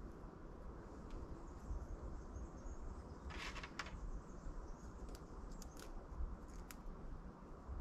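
Faint handling sounds as watermelon seeds are pressed into potting soil in a plastic seed tray: a short scratchy rustle about three seconds in, then a few small clicks, over a low steady rumble.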